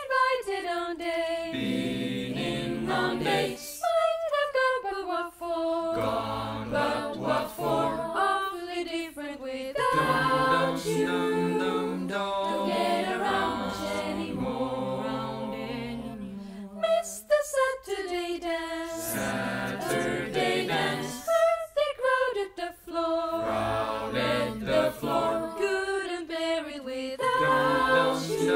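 Small mixed choir of young female and male voices singing a cappella in several parts, phrase by phrase with short breaks between phrases.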